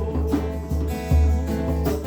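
Instrumental song passage: acoustic guitar strummed and plucked over a steady bass.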